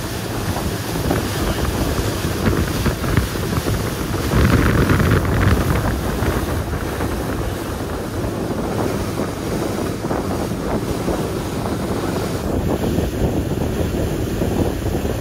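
Wind buffeting the microphone over water rushing past a boat under way, a steady rush that swells about four to six seconds in.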